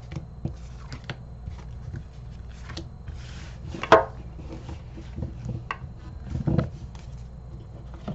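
Tarot cards being swept up off a cloth-covered table and gathered into a pile: scattered soft slides and light taps of card on card, the loudest a sharp tap about four seconds in, with a few softer knocks later.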